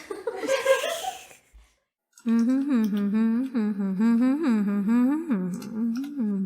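A moment of laughing talk breaks off, and after a short silence a hummed melody starts: one voice-like line of repeated swooping notes rising and falling in a steady rhythm.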